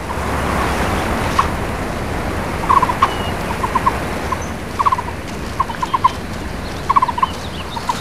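Forest ambience: a steady rushing noise with an animal repeating short calls, each a quick run of three to five pulsed notes, about once a second, starting a few seconds in.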